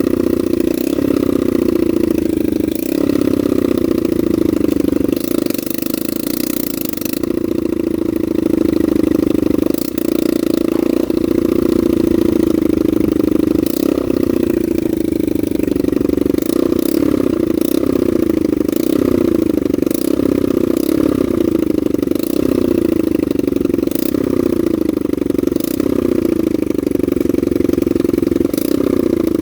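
Honda NSF100's small single-cylinder motorcycle engine running steadily, with a few light clicks over it.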